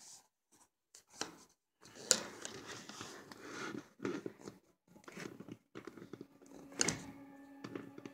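Pet mice nibbling food and rustling the wood-shaving bedding inside their plastic hide: irregular crunching and scratching, with sharper crackles about two seconds in and again near seven seconds.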